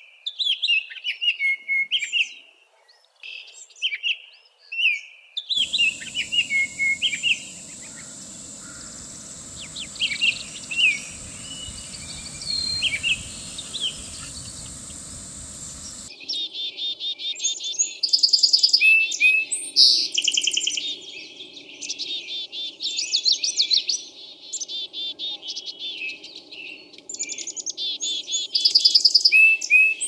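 Baltimore oriole singing short, clear whistled phrases. From about five seconds in, a steady hiss and a thin high steady tone lie under them. From about sixteen seconds in come loud, rapid, dry rattling chatters, repeated in bursts.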